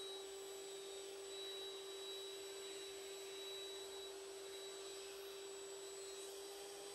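Electric air pump blowing air through a hose into a large PVC inflatable ride roll, running steadily with an even hum and a thin high whine.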